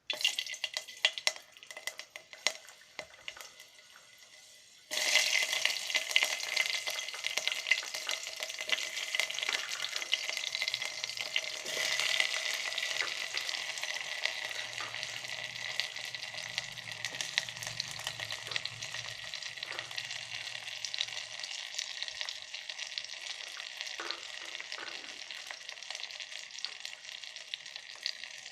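Chopped onion and garlic frying in hot oil in an electric kettle. Sparse crackling of the hot oil at first, then about five seconds in a sudden loud sizzle as the vegetables go in, which settles into a steady sizzle that slowly eases off.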